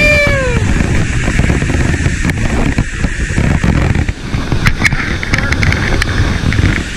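Steady rush of water pouring over a dam spillway, mixed with wind buffeting the microphone. A brief falling shout comes right at the start, and a few sharp clicks sound about two-thirds of the way through.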